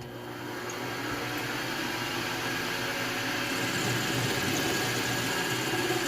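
Metal lathe running while turning down a small steel screw held close to the chuck to make a set screw: a steady machine hum with a hiss of cutting, growing over the first second and then holding steady.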